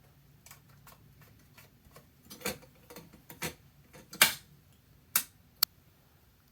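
Scattered sharp clicks and knocks from a Bernina 801 Matic sewing machine with its motor stopped, the loudest few coming between about two and six seconds in, as its mechanism and controls are handled.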